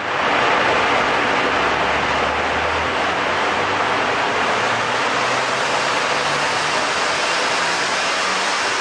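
Supercharged BMW M3 E46 straight-six engine running on a power dyno, its low note climbing slowly in pitch under a loud, steady rush of noise.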